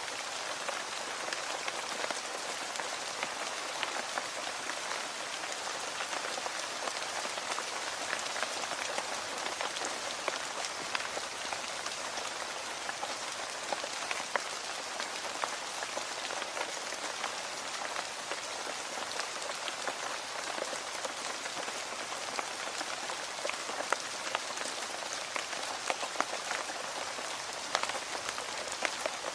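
Steady rain falling on a hard surface, an even hiss dotted with many sharp individual drop impacts.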